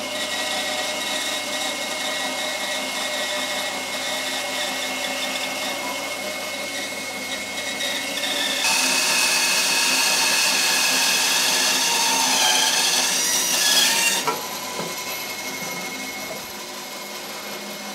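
A Record Power 12-inch bandsaw with a 1/4 inch 3 TPI blade runs steadily while making a straight rip cut through a laminated hardwood box blank. The cut is loudest and hissiest from about 9 to 14 seconds in. After that the saw runs on more quietly, free of the wood.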